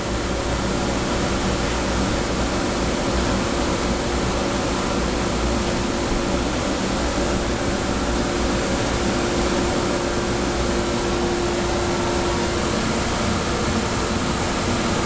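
Steady fan noise with a faint steady hum in it, from a GCC LaserPro laser engraver's ventilation stalled on a PCL command error, the job stopped but the fans still running.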